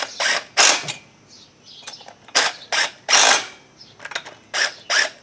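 Ratchet wrench clicking through about eight short strokes, some in quick pairs, as the golf cart's cylinder head bolts are run down.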